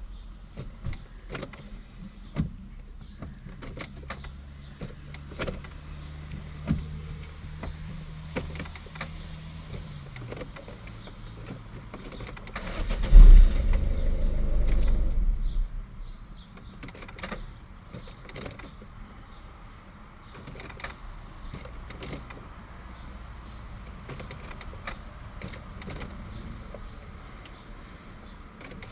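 A Peugeot 206 CC 1.6 HDi diesel that fails to start reliably: a steady electric whir for several seconds that winds down, then a sudden louder low rumble lasting about two seconds midway, with scattered clicks throughout.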